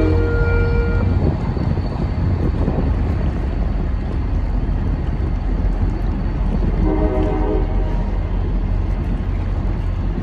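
MBTA commuter train rumbling steadily across a steel truss railroad bridge. Its multi-tone horn cuts off about a second in and sounds again for about a second and a half near the end.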